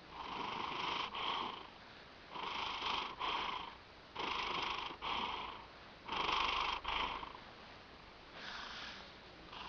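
Domestic cat snoring in its sleep: a rasping snore on each breath, five breaths about two seconds apart with short quiet pauses between.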